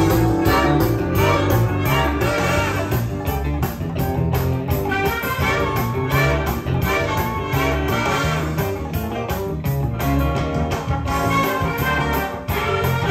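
Music with a steady beat played back from a cassette on a Sony TC-K777ESII tape deck.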